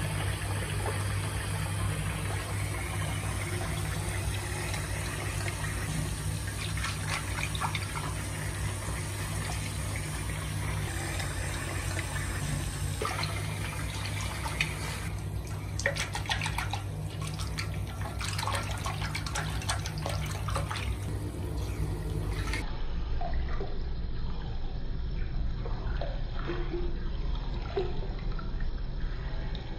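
Water running from a bathroom tap into a sink of water, with splashing and dripping as a baby monkey is washed and rinsed, the splashes thickest in the middle stretch.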